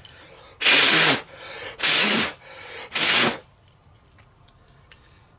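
Three short bursts of spray, each about half a second long and about a second apart.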